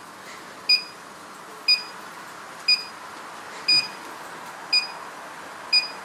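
Burglar alarm control panel beeping once a second, six short, sharp beeps in a steady rhythm: the exit-delay countdown after the panel is set to away arm.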